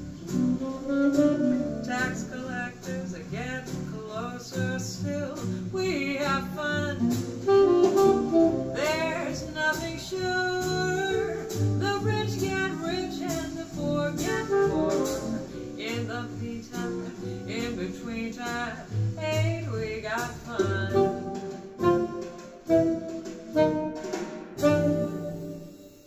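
A song with a singing voice and guitar played back through Infinity SM65 bookshelf speakers and heard through the room. The music stops near the end.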